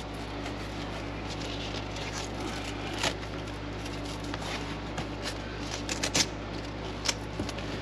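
Fabric seat cover being handled, pressed and tucked into place: soft rustling with scattered light scratches and clicks, a few sharper ones about three, five, six and seven seconds in. A steady low hum runs underneath.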